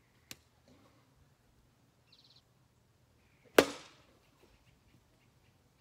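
A plastic whiffle ball bat hitting a whiffle ball: one sharp crack about three and a half seconds in, ringing briefly, with a fainter click near the start.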